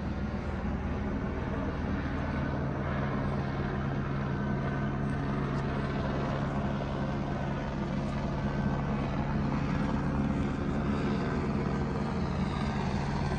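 Police helicopter overhead, a steady low drone of rotor and engine that grows slightly louder in the second half.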